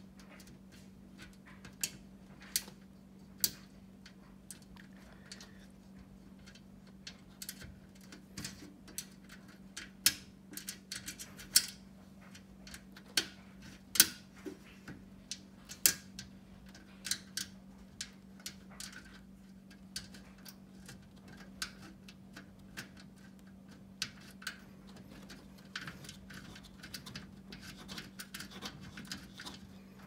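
Irregular sharp metallic clicks and ticks as a screw and nut are turned by hand in the sheet-steel corner of a metal typewriter table leg, over a faint steady hum.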